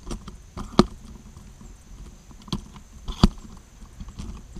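A camera tripod being adjusted by hand: a few sharp, irregular clicks and knocks from its legs and mount, the loudest about a second in and again about three seconds in.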